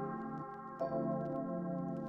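Background music: slow ambient music of sustained, bell-like tones, with a fresh note struck just under a second in.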